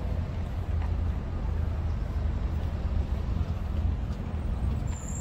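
Steady low rumble of outdoor background noise, with a faint high whistling tone near the end.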